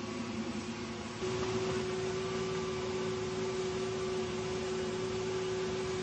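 Engine of a tracked Fiat 500 bulldozer conversion running at a steady speed as it crawls along, a steady hum that gets louder and slightly higher about a second in.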